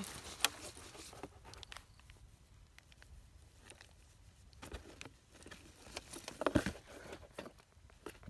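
Light handling noise: cloth garments being lifted and rummaged in a cardboard box, soft rustles and small taps, with a louder burst of handling about six and a half seconds in.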